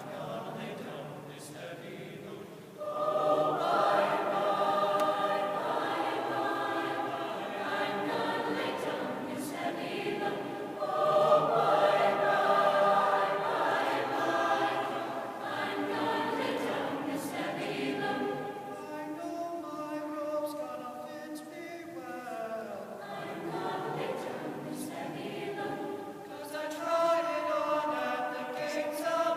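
High school symphonic choir singing sustained chords. The choir comes in louder about three seconds in, is at its loudest a little before the middle, softens, and swells again near the end.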